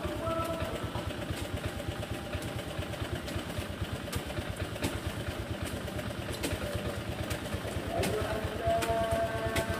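Motorcycle engine idling with a steady, rapid low putter.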